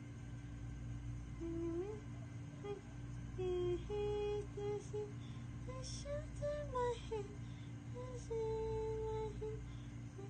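A woman humming a lullaby melody without words, in held notes that step up and down in pitch, over a steady low background hum.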